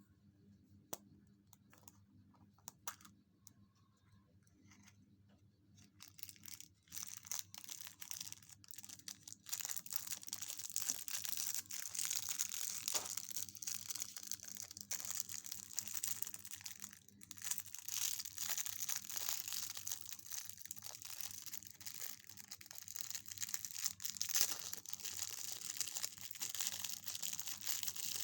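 A few faint clicks, then from about six seconds in, close, continuous crinkling and tearing of a surprise egg's wrapper being unwrapped.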